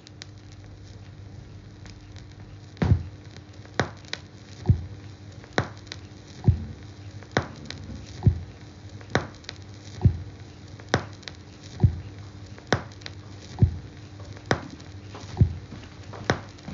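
Vinyl LP playing in the silent groove between tracks: steady stylus surface noise with a low hum. From about three seconds in, a sharp click repeats evenly just under once a second, typical of a scratch or mark on the turning record.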